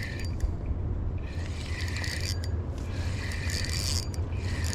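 Fishing reel being cranked in several spells of about a second each, its gears whirring, as a small channel catfish is reeled in. A steady wind rumble runs underneath.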